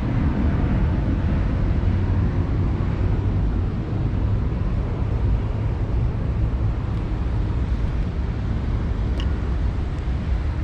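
Steady low outdoor rumble with no distinct source, its higher part fading over the first second.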